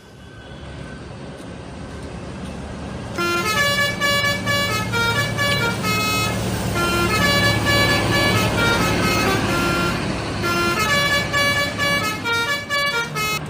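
A bus's telolet horn playing a quick, changing run of musical notes, beginning about three seconds in and continuing to the end, over the bus's engine running. The engine grows louder in the first few seconds before the horn starts.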